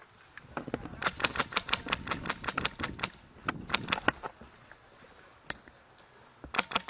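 Airsoft gun firing: a fast string of about sixteen shots over two seconds, a few more shots shortly after, a lone shot, then a short burst near the end.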